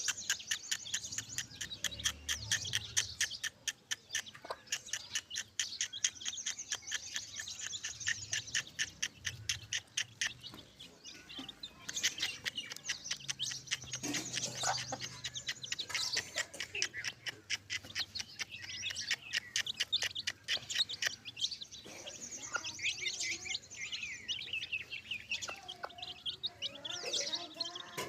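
Newly hatched chicks peeping in rapid, high-pitched cheeps, many per second and without a break.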